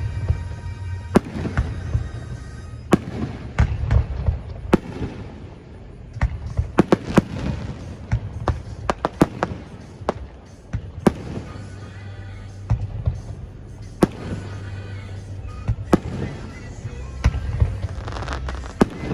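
Aerial fireworks going off: repeated sharp bangs, some in quick crackling clusters, with background music playing along.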